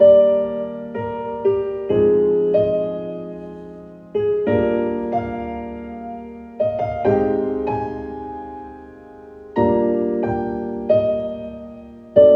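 Background piano music: soft, slow chords struck and left to fade.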